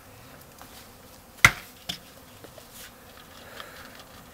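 Honeybees buzzing steadily as a package of bees is shaken out into a hive. A sharp knock about one and a half seconds in, with a smaller one just after.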